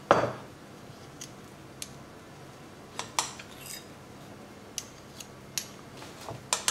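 Light clicks and clinks of a metal utensil against mussel shells and a dish as the shells are stuffed with herb butter, about a dozen scattered taps with one louder knock right at the start.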